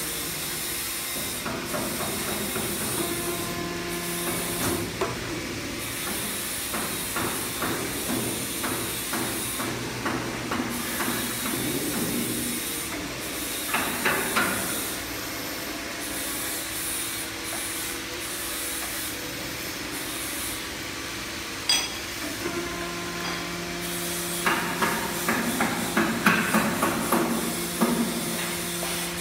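CNC aluminium profile bending machine at work: a steady motor hum over a constant hiss, dropping out for a while and coming back about two-thirds of the way through. Two clusters of sharp clicks and creaks, around the middle and again near the end, come as the rollers bend the aluminium profile.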